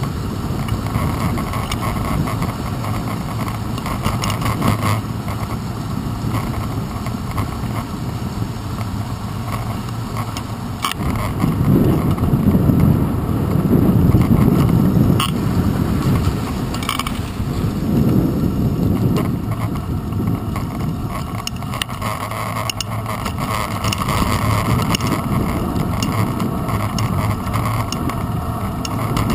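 Ride noise of a bicycle on a paved path, heard through a handlebar-mounted GoPro Hero 2: steady wind and tyre rumble, louder for a few seconds near the middle, with a few sharp knocks as the bike goes over bumps.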